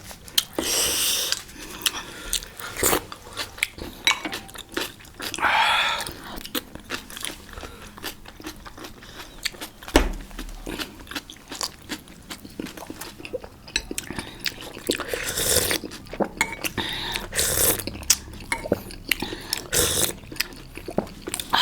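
Close-up eating sounds of momo dumplings being bitten and chewed: a dense, irregular run of small wet mouth clicks with some crunches.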